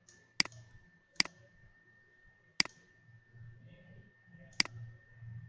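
Computer mouse clicking: four sharp single clicks spaced a second or two apart, over a faint steady high-pitched tone.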